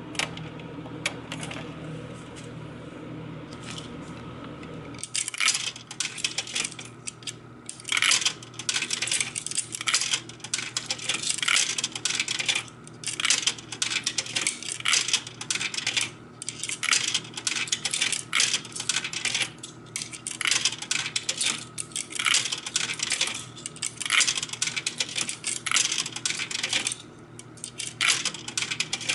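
Nickels fed one after another into a single-price vending machine's coin mechanism, each clinking down through it into the coin box, a long irregular run of clinks starting about five seconds in. The price DIP switches are all set to zero, so the machine takes the coins without vending.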